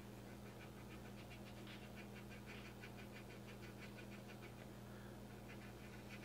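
Faint, quick rhythmic scratching of a cotton swab scrubbing enamel wash off a plastic model hull, several short strokes a second, over a low steady hum.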